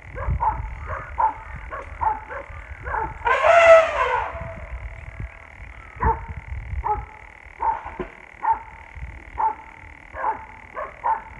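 Dogs barking repeatedly, short sharp barks about once or twice a second, with a louder, drawn-out call about three seconds in.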